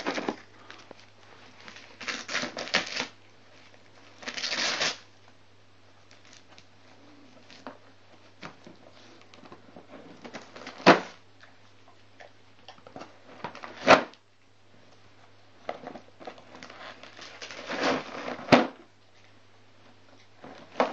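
A German Shepherd tearing and crumpling Christmas wrapping paper off a gift box, in irregular bursts of rustling and ripping with three sharp cracks. A faint steady low hum runs underneath.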